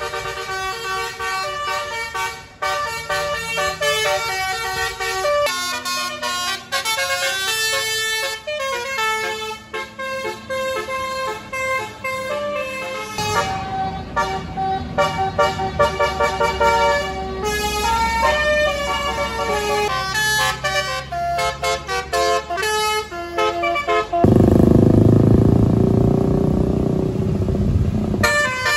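Basuri multi-tone bus horns ('telolet') playing short melodic tunes, with the notes stepping up and down in chords across several passes. Near the end a loud low rumble covers the horn.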